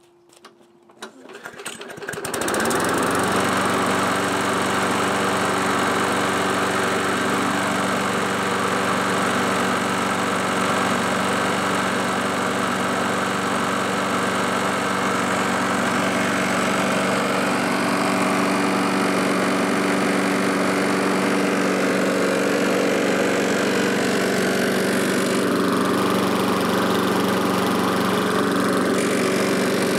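A Craftsman push mower's 4¾ hp Briggs & Stratton engine is pull-started, catching about two seconds in and then running steadily at one speed. Its crankshaft is slightly bent, which sets up a marked vibration through the whole machine.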